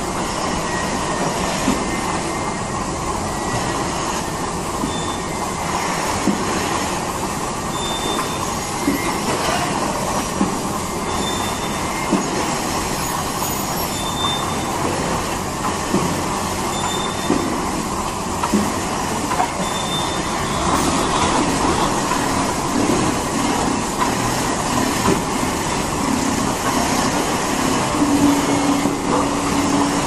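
Rotary goat milking parlour machinery running: the steady mechanical noise of the turning platform and milking equipment, with scattered knocks and a short high tone repeating about every three seconds.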